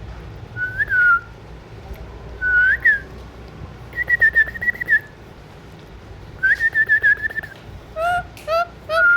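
An Alexandrine parakeet whistling: two short notes that rise and fall, then two longer wavering held whistles, then three quick short calls near the end.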